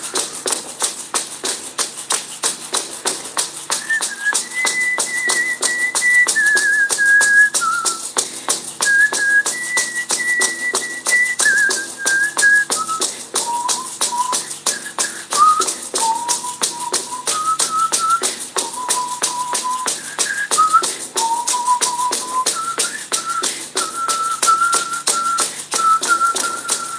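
A hand-held frame drum and a large bass drum struck with padded beaters in a steady, even beat, with a slow whistled melody of long held notes over it.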